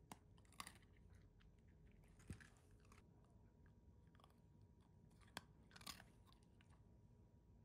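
Schnoodle (schnauzer–poodle mix) chewing a hard treat: a few faint, scattered crunches.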